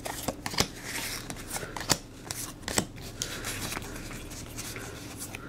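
Magic: The Gathering trading cards being flipped through by hand, each card slid off the front of the stack in turn: soft sliding rustles with an irregular card snap every second or so, a few of them sharper.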